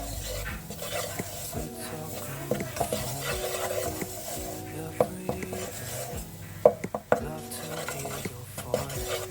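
A spoon stirring and scraping in a cooking pot, with a few sharp clinks of the utensil against the metal, the loudest about two-thirds of the way in. Soft background music plays underneath.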